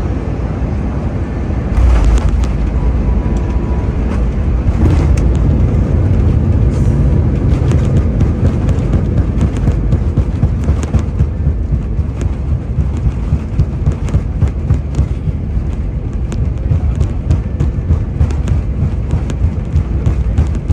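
Airbus A320 cabin noise on the landing run: a steady, loud rumble from the engines and the aircraft rolling on the runway, which jumps up suddenly about two seconds in and stays loud. Later it carries a rapid stream of rattles and knocks.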